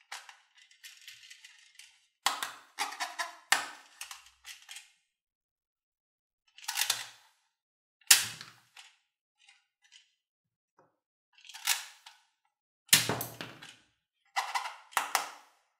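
Spring-loaded plastic toy guns being cocked and fired: a series of sharp plastic clicks and snaps in irregular clusters, a few with a dull thump, separated by pauses of a second or two.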